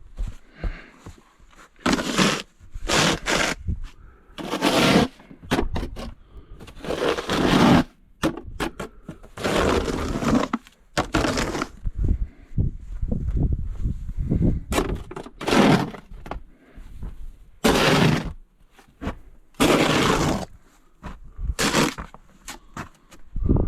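Snow shovel scraping and scooping snow: about a dozen short scraping strokes, coming every one to three seconds.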